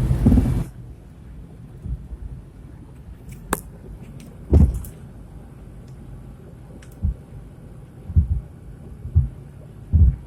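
Several dull, low clunks at irregular intervals from a 1996 Oldsmobile Bravada, over a steady rumble of the moving truck. The owner takes them for a broken shock absorber on the left side, or possibly a worn motor mount.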